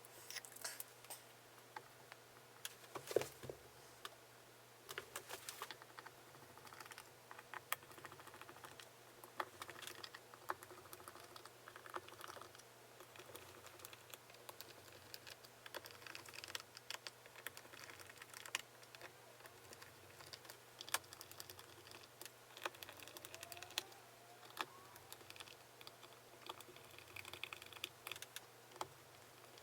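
Faint, irregular light clicks and taps from small guitar hardware and tools being handled on a workbench during disassembly and cleaning, with brief soft rustles in between.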